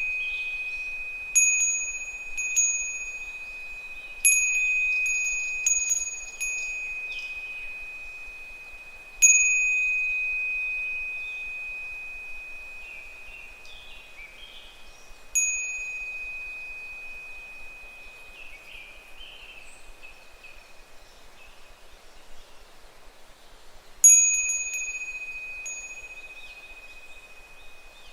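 Japanese wind chime (fūrin) struck by its clapper at irregular intervals, about eight times, clustered in the first few seconds and then sparser, each strike a single clear high tone that rings on and slowly fades. Higurashi cicadas call faintly in the gaps between strikes.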